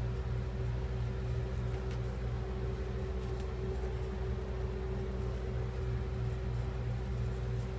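Steady low machine hum with a constant tone, unchanging throughout, with a few faint clicks.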